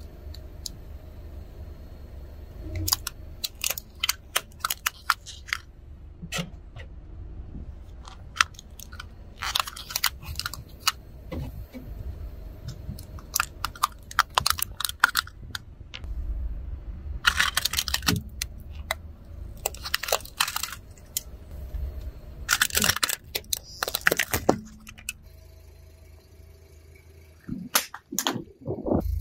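A car tyre rolling over a row of small toy buses and crushing them: a long run of sharp cracks and snaps, some single and some in quick clusters, over a low rumble. The cracking stops a few seconds before the end.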